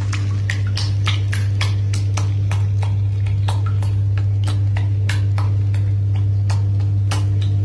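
Steady low hum of a jetted bathtub's pump running, with an irregular crackle of sharp clicks several times a second from the churning, popping foam.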